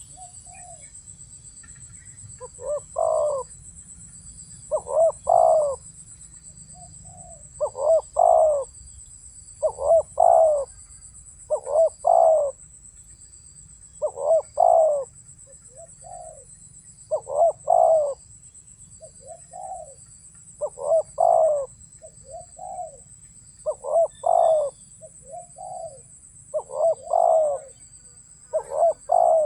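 Spotted dove cooing: loud, deep cooing phrases repeated about every two to three seconds, about eleven of them. Behind them runs a steady high-pitched insect chorus.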